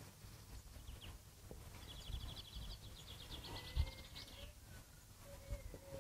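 Faint birdsong: a rapid trill of high repeated notes lasting about two seconds in the middle, over quiet room tone, with a soft low thump partway through.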